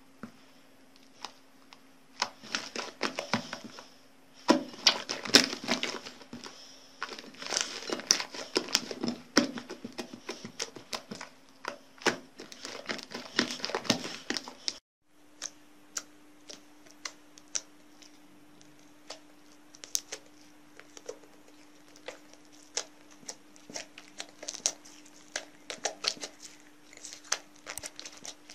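Hands squishing and kneading slime, with crackling and popping clicks. The crackling is dense for the first half, breaks off just before the middle, and comes back as sparser single pops. A faint steady low hum runs underneath.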